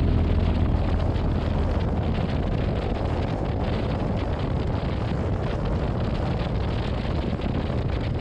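Steady wind rushing over the camera microphone of a motorcycle riding at road speed, with a low rumble of the bike and its tyres on the road underneath.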